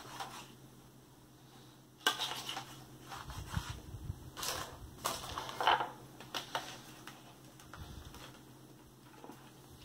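Plastic knife sawing through a fried chicken sandwich on Texas toast on a plate: a run of uneven crunching and scraping strokes through the crispy breaded chicken, starting about two seconds in and tailing off after about seven seconds.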